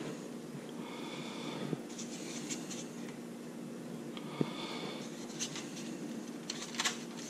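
Quiet handling of cooked fish fillets on paper plates: soft rustles and a few light taps as the pieces are laid onto a sandwich roll. Underneath are a steady low hum and a breath through the nose about every three and a half seconds.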